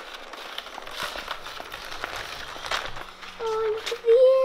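Wheeled shopping basket rolling across a shop floor, with faint clicks. About three and a half seconds in, a held pitched note starts and rises slightly near the end.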